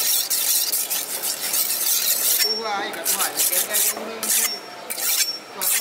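A long fish-cutting knife being sharpened on a whetstone: the steel blade scrapes across the stone in quick back-and-forth strokes, then in slower, separate strokes from about halfway through.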